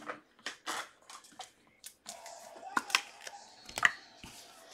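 Trading cards and packs handled on a table: a run of short rustles, slides and light taps, the two sharpest a little under three and four seconds in.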